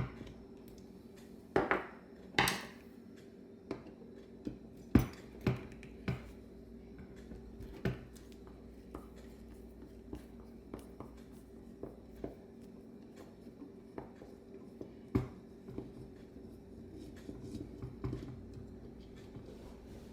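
Small metal carburetor parts and tools clinking and tapping as a Bendix-Stromberg WWC two-barrel carburetor is taken apart by hand: a dozen or so scattered sharp knocks, the loudest about five seconds in, over a steady low hum.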